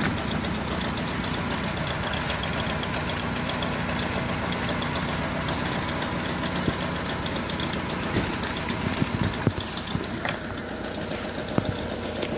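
Honda Civic FD engine idling steadily with a knock, which the technician suspects is a misfire from a weak ignition coil or a bad spark plug. A few sharp clicks come in the later part.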